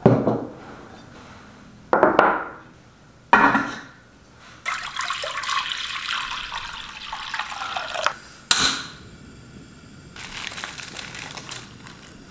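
Liquid poured into a hot pot for about three seconds, between several short sharp knocks on the tabletop.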